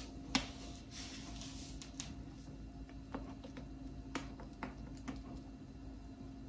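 Scattered light clicks and knocks of kitchen things being handled, the sharpest about a third of a second in, with a short rustle about a second in, over a steady low hum.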